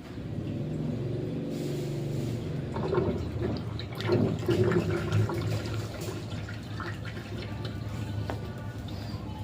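Water rushing and splashing in a Sharp washing machine, over a steady low hum.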